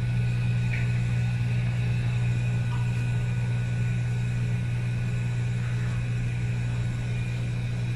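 A steady low mechanical hum that holds an even level throughout.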